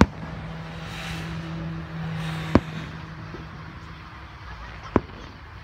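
Aerial firework shells bursting with three sharp bangs: one at the start, one about two and a half seconds in, and one near the end. A steady low hum runs underneath.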